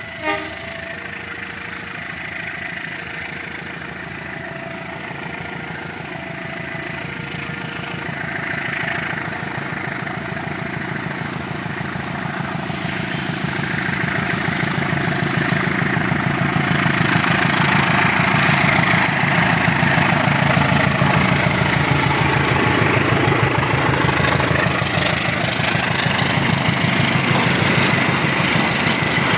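Diesel locomotive engine drawing closer and growing louder, its engine pulse steady and loudest over the last ten seconds or so. For the first several seconds a level-crossing alarm sounds in two alternating tones, and there is one sharp knock right at the start.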